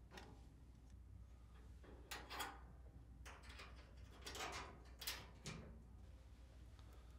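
Faint clicks and scrapes of a nut driver backing out the 5/16 screws that hold a dryer's front panel: a handful of short metal ticks spread over several seconds.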